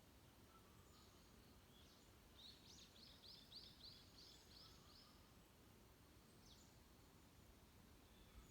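Faint forest songbird song: a run of about nine quick down-slurred high notes, about three a second, in the middle, with single high call notes before and after, over a low steady background rumble.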